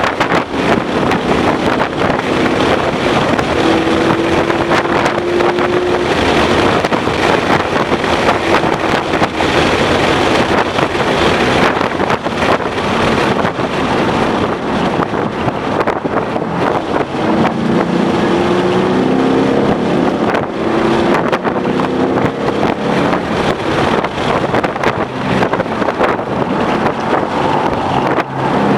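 2011 Ford Mustang GT's 5.0-litre V8 driven hard on a race track. The engine note climbs repeatedly through the revs under heavy wind and road noise.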